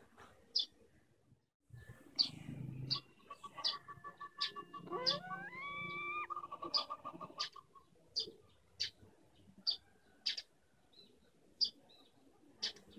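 A hen pecking feed from an open palm: sharp, short clicks of the beak striking the hand and grain, one every half second to a second. For a few seconds in the middle, a rapid train of high pips and a rising whine sound along with the pecking.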